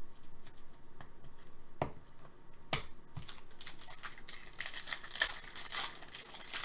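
Foil trading-card pack wrapper being crinkled and torn open, with a few sharp taps before the rustling grows denser in the second half.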